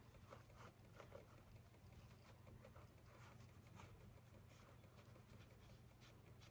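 Near silence: faint, soft, irregular brushing strokes of a makeup brush being swept over the skin to blend cream contour, over a low steady hum.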